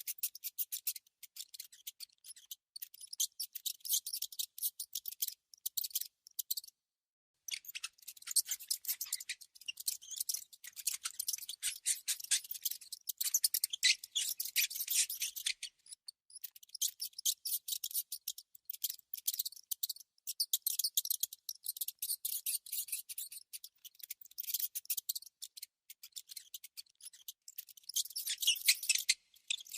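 Mouse sound effect: fast, high-pitched scratchy clicking in irregular runs, like small teeth or claws working, with a brief pause about seven seconds in.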